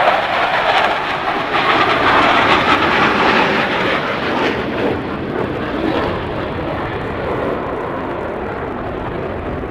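An airshow aircraft flying past, its engine noise swelling to a peak in the first few seconds and then slowly fading.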